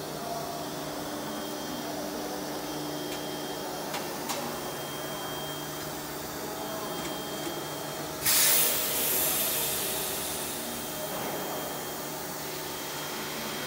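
Aluminium profile CNC milling machine running as its axes travel back to the home position, with a steady hum of motors and drives. About eight seconds in, a sudden loud hiss of compressed air starts and fades over a couple of seconds.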